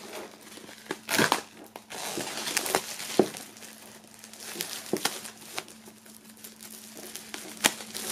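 Clear plastic shrink-wrap being peeled off a flat box, crinkling and crackling in irregular snaps.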